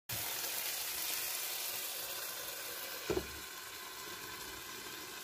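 Ground-meat-topped flatbread sizzling steadily in a covered frying pan. About three seconds in there is a short knock from the glass lid as it is handled, and the sizzle is slightly quieter after it.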